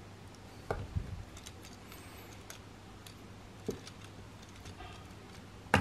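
Plastic LEGO Technic parts clicking and knocking as the bike model is handled and its gear wheels are turned: a few sharp clicks, the loudest near the end, with faint light ticking between, over a faint steady hum.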